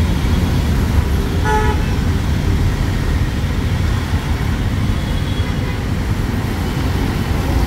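Busy street traffic with engines running steadily, and one short vehicle horn honk about a second and a half in.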